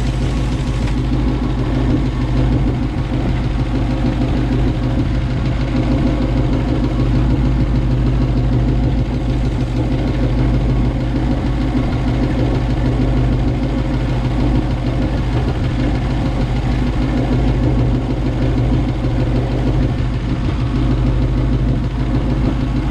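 1957 Chevy Bel Air's engine idling steadily, fed from a temporary gravity fuel bottle during its revival.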